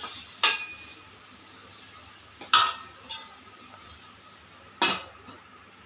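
Metal spoon stirring onion-tomato masala in a stainless steel pot, striking the pot with a sharp ringing clink three times, about two seconds apart, over a light sizzle of the frying masala.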